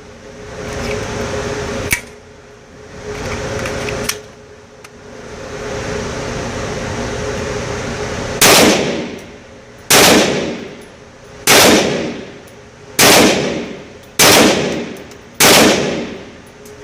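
KelTec PMR-30 .22 Magnum pistol firing six shots at a steady pace, about a second and a half apart, starting about eight seconds in. Before the shots there is only lower background noise and a single click about two seconds in.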